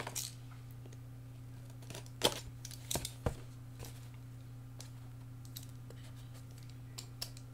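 A few scattered light clicks and taps as a cardboard box and a small cutting tool are handled, over a steady low hum.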